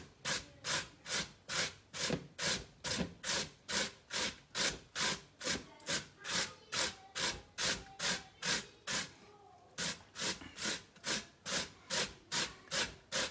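A large cucumber being grated on a metal box grater into a plastic bowl: rhythmic scraping strokes, about two and a half a second, with a short pause a little past the middle before the strokes resume.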